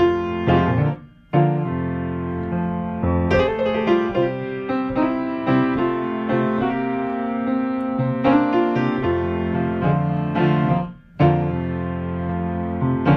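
Solo piano music playing, with sustained chords and a melody; it drops out briefly twice, about a second in and again near the end.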